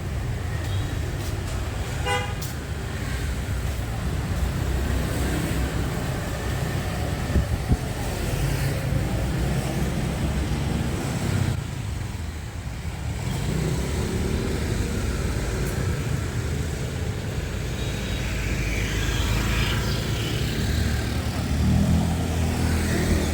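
Busy city street traffic with a steady engine and tyre rumble of passing vehicles, and a short vehicle horn toot about two seconds in.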